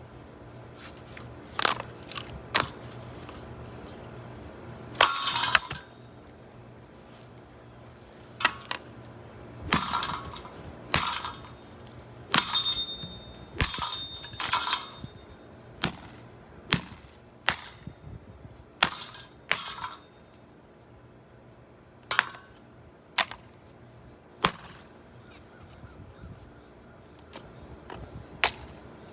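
A Heritage M52UL six-blade ceiling fan being smashed: about twenty hard blows at an irregular pace, its metal housing clanging and parts cracking and breaking, several strikes in the middle ringing briefly.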